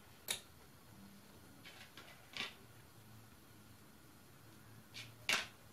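Quiet kitchen room tone broken by four light clicks or taps of small things being handled at the counter: one just after the start, one about halfway, and two close together near the end, the last the loudest.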